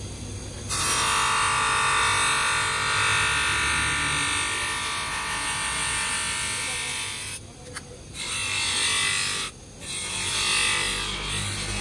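Clear plastic strip pressed against the spinning threaded spindle of a bench polishing motor, making a loud steady buzz over the motor's low hum. The buzz breaks off briefly twice in the second half, when the contact is lifted.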